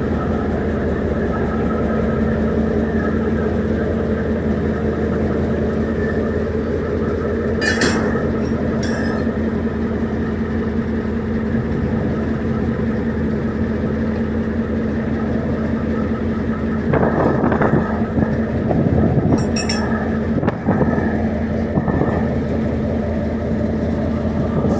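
Diesel locomotive engine running steadily with a constant droning pitch, broken by brief sharp clanks or hisses about a third of the way in and again, with a rougher louder patch, about three-quarters of the way through.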